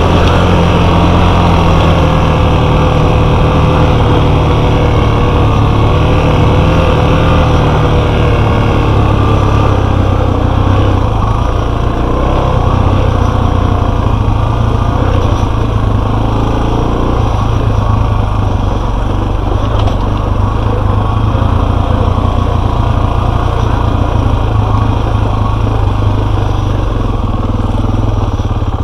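Enduro motorcycle engine running loud and close while riding, its pitch rising and falling with the throttle.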